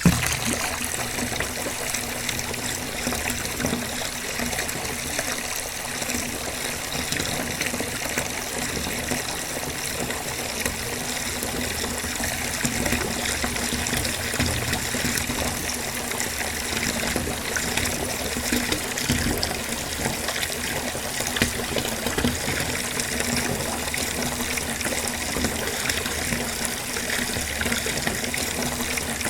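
Bathtub filling: water running steadily from the tap into the tub, a continuous gushing splash.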